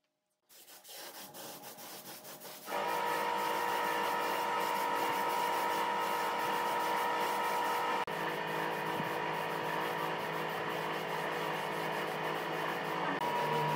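Spray gun spraying a finish onto wood: a few short spurts first, then from about three seconds in a steady loud hiss with a high steady hum running through it, broken briefly once about eight seconds in.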